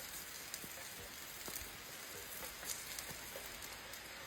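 Heavy rain falling steadily in a continuous hiss, with scattered sharp ticks and pops from a wood fire crackling.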